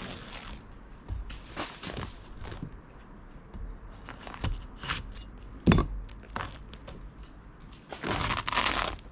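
Hands working at old, cracked roofing felt and dry debris on a flat roof: irregular scrapes, crackles and knocks, with one sharp knock partway through and a longer scrape near the end.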